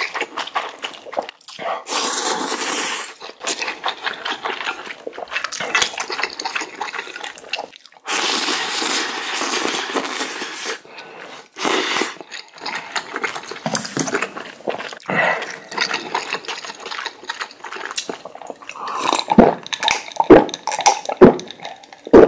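A person eating spicy instant jjamppong ramen noodles in broth, with several long, loud slurps of noodles and soup and wet chewing in between. Near the end the chewing turns to sharper crunching.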